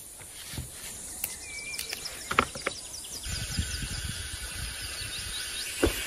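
Faint snaps and rustling as the fibrous skin is stripped from pumpkin vine shoots, with a bird's short whistled call. From about halfway, a rapid run of short high chirps goes on over a low rumble.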